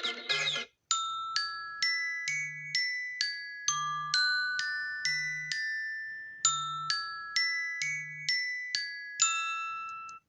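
iPhone ringtone: a melody of bell-like struck notes, about two a second, each ringing out and fading. It starts just under a second in, after the previous ringtone cuts off, and stops just before the next one begins.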